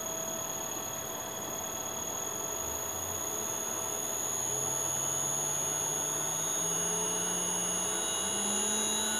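Leeson 1800 RPM three-phase induction motor driven by a Teco-Westinghouse L510 VFD in sensorless vector mode, spinning up as the speed is turned up, its hum rising steadily in pitch. A steady high whistle from the drive's 5 kHz PWM carrier frequency runs over it. The motor runs smoothly through the mid-range, without the shaking it had in volts-per-hertz mode.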